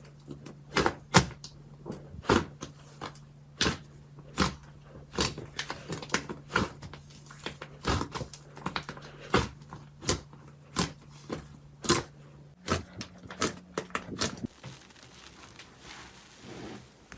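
Slime being squeezed and poked, giving an irregular run of sharp clicks and pops, about two a second; after about fourteen seconds the pops give way to a softer, fainter crackling.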